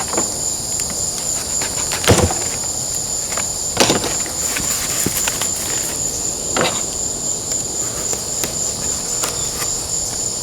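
Crickets trilling in a steady high shrill chorus, with three short knocks and creaks from styrofoam being handled and pushed as a cut-out center section is punched free.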